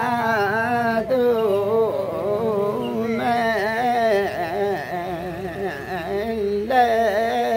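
Voices singing a Limbu folk song in long held lines with a wavering, ornamented melody. There is a brief break about a second in, and a fresh, louder phrase starts near the end.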